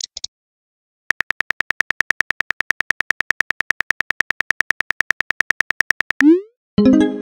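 Phone on-screen keyboard clicks, about eight a second, as a text message is typed out. Near the end the clicks stop and a short rising swoosh of the message being sent is followed by a ringing message chime that fades away.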